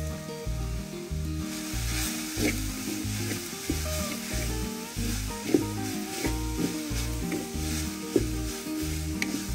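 Chopped leafy greens sizzling in a clay pot over a wood fire, stirred with a wooden spoon that scrapes and knocks against the pot. The sizzle and stirring start about a second and a half in, over background music with a steady beat.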